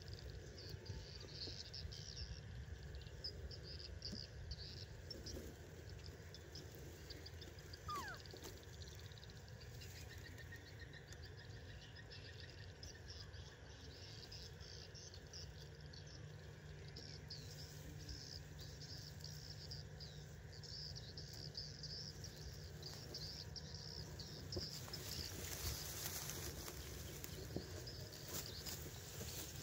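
Faint rural ambience: steady high chirping of small creatures over a low rumble. A single short call falls in pitch about eight seconds in, and a brighter hiss rises near the end.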